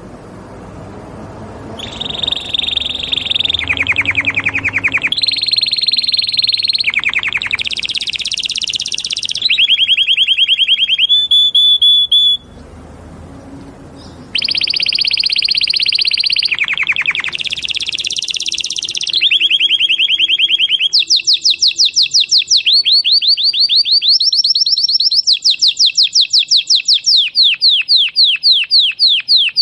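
Canary singing loudly in trilled tours: fast runs of high repeated notes that change to a new phrase every second or two. There is a short break about halfway through, and near the end come long runs of quick rising notes.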